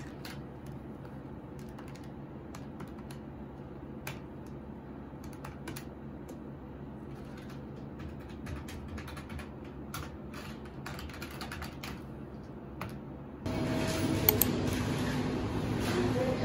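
Typing on a computer keyboard: irregular, sparse key clicks over a low steady hum. About three-quarters of the way through, it cuts to the louder, busier background noise of a coffee shop.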